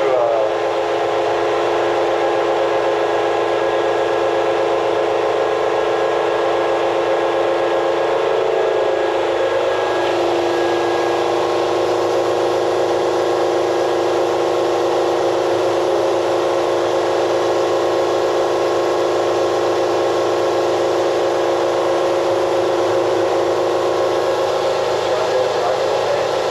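Doosan HP 5100-II horizontal machining center running with a steady whine made of several tones, whose pitch shifts about nine seconds in.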